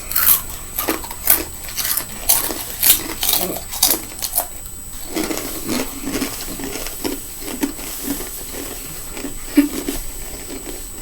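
People crunching and chewing Takis rolled tortilla chips: sharp, irregular crunches for the first five seconds or so, then softer, quicker chewing.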